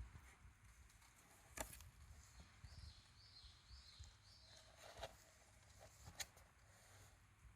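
Near silence: faint room tone with two soft clicks and a faint run of four short, high, falling chirps midway.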